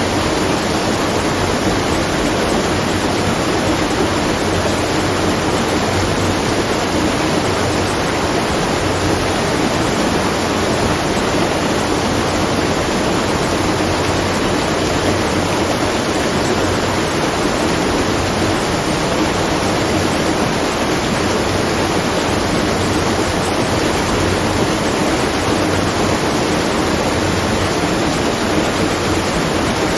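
Water rushing and splashing at a watermill, a loud, steady, unbroken rush with no rhythm or pauses.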